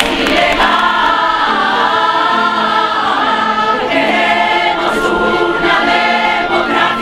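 A large crowd singing together in chorus, in sung phrases about a second long, with a long held note from about five seconds in.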